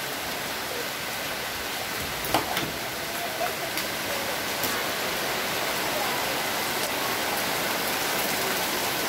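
Steady rain falling on wet paving stones and puddles, an even hiss throughout, with a couple of faint short knocks about two and a half seconds in.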